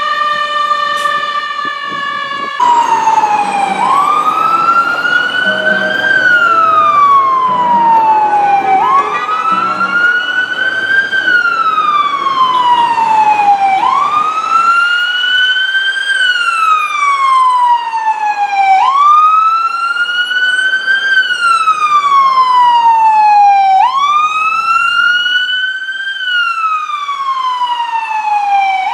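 Ambulance electronic siren on wail: each cycle climbs quickly, then falls slowly, repeating about every five seconds. It cuts in about two and a half seconds in, after a held siren tone that drifts slightly lower.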